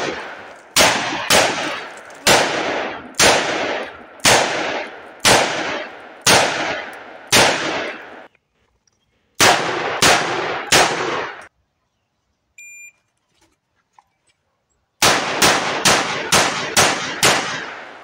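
Rossi RP63 .357 Magnum revolver firing in quick strings of shots, about two a second, each crack trailing off in an echo. There is a pause of about three seconds past the middle, then a final string of six shots fired fast, one full cylinder.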